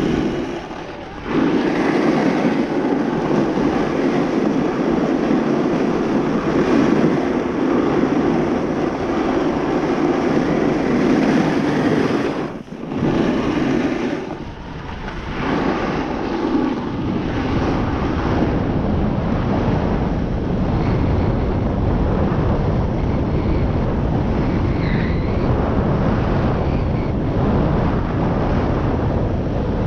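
Wind buffeting the microphone and snow hissing under the rider during a downhill run on a groomed slope. The noise dips briefly about a third of the way in and again shortly after, and the wind rumble grows heavier in the second half.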